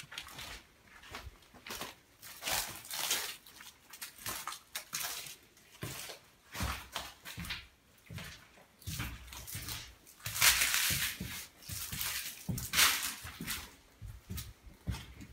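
Irregular footsteps crunching and scuffing over debris on a floor, in short uneven bursts, with the loudest stretch about two-thirds of the way through.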